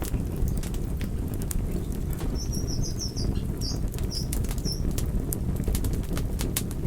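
Campfire burning with a steady low rumble and scattered sharp crackles and pops of the wood. In the middle comes a brief run of short, high chirps.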